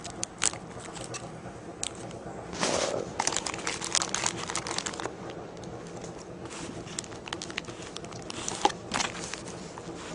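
Plastic packaging being handled, crinkling and rustling with scattered small clicks; busiest from about two and a half to five seconds in, with another short flurry near nine seconds.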